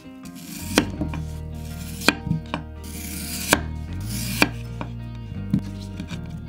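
Chef's knife slicing a peeled raw potato on a wooden cutting board: about eight sharp knocks, irregularly spaced, as the blade comes down on the board, with a short swish as it passes through the potato.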